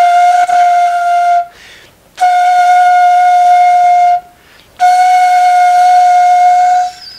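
Plastic danso (Korean vertical bamboo-style flute) blown in three long held notes, all on the same steady pitch, each about two seconds long with short breaks for breath between, with a breathy edge to the tone. These are gentle long-tone breaths for sound production.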